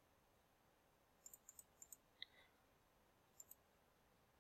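Faint computer mouse clicks: a quick run of about seven clicks around the middle and two more near the end, with one short faint pitched blip among them.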